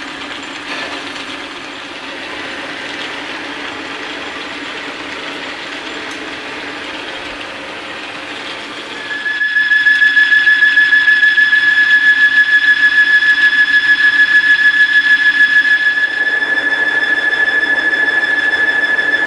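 Small metal lathe running, turning a metal go-kart axle. About nine seconds in, a loud, steady high-pitched squeal sets in over the running lathe and holds, pulsing slightly. The squeal is typical of the long axle rubbing in the wooden block that steadies its outer end, which the machinist takes to be where most of the noise comes from.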